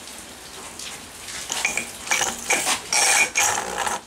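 Metal clinking and scraping as a spark plug with its cap is handled and set against the cylinder head of a Veterok-8 outboard motor. A run of sharp, ringing clinks comes in the second half.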